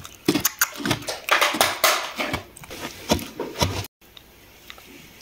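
Plastic toy horse figure being moved over a sand arena: irregular crunching, tapping and scraping for about four seconds, then a sudden cut to quiet room tone.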